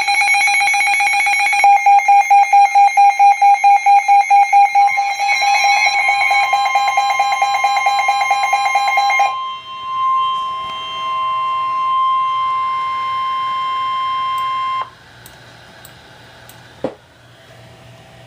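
Emergency Alert System attention tones for a severe thunderstorm warning: loud electronic beeping pulsing about four times a second, then steady tones, ending in one long steady tone that cuts off about fifteen seconds in, leaving faint hiss.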